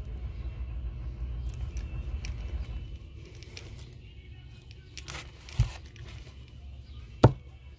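Small handling noises from a bait held in a locking clamp at a workbench: a soft knock about halfway through and one sharp click near the end, the loudest sound. A low background hum eases off after about three seconds.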